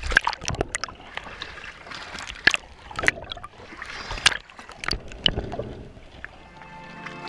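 Seawater splashing and sloshing against a camera held at the waterline, with sharp irregular splashes. Music comes in near the end.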